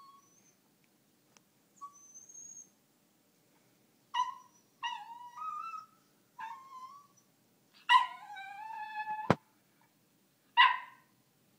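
Dog whining and whimpering for its toy: faint high whines at first, then a run of about five louder, wavering cries. The longest is held for over a second and ends in a sharp click.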